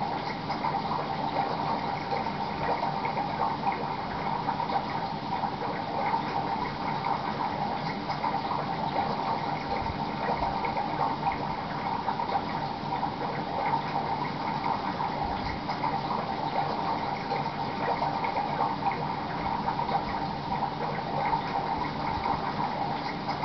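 Aquarium water bubbling steadily, an even stream of rising air bubbles with no breaks.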